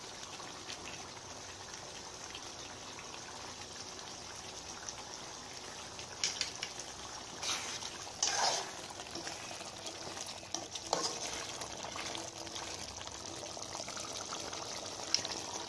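Chicken gravy simmering and bubbling in a steel pot, a steady soft hiss, with a few short clinks and scrapes of a metal ladle stirring it between about six and eleven seconds in.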